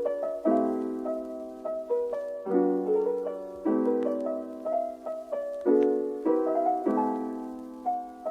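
Background music: a piano playing chords, a new chord struck about every second.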